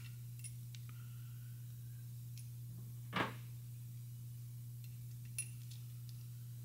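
Faint light clicks and taps of valve stem seals being pushed by hand onto the valve stems of an aluminium cylinder head, the clearest about three seconds in and a sharp one about five and a half seconds in, over a steady low hum.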